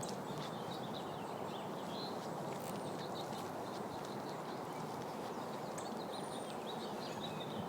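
Outdoor ambience: a steady low hiss of background noise, with faint bird chirps here and there.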